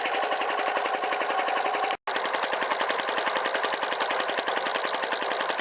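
Air compressor pump running, a rapid, even knocking pulse as it builds tank pressure toward its 120 psi cut-off. It breaks off for a moment about two seconds in.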